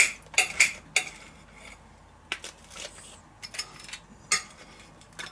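Knife and fork cutting through a toasted sandwich on a plate: short scraping strokes of the blade through the crust and clinks of the cutlery against the plate, about half a dozen separate sounds.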